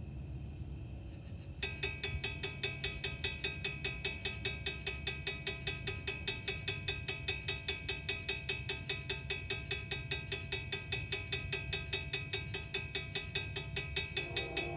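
Railroad crossing bell starting up suddenly as the crossing signals activate, then ringing in rapid, even strokes, several a second. A second, lower-pitched ringing joins near the end.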